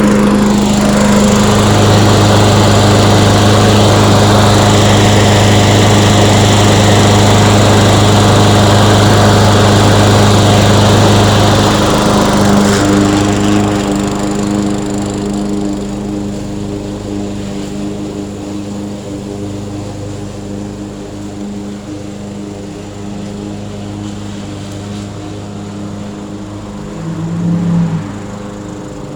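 Murray self-propelled 22-inch lawn mower's petrol engine running steadily. About halfway through it becomes quieter and duller, and near the end it swells briefly louder.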